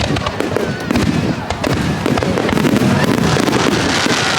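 Aerial fireworks shells bursting close overhead in rapid, overlapping succession, with dense crackling and booms and a few thin whistling tones sliding in pitch.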